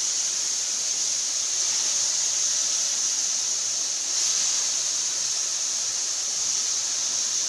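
Octopus tentacles and soffritto sizzling in a hot pan over a high flame, a steady high hiss as they begin to brown.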